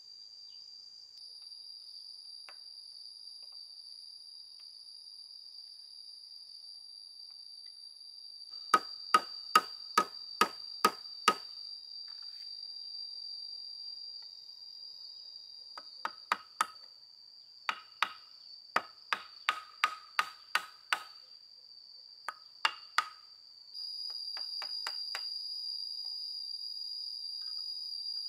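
Hammer nailing down wooden roof boards: runs of sharp knocking blows, about three a second, broken by pauses. Insects chirr steadily and high-pitched throughout, louder near the end.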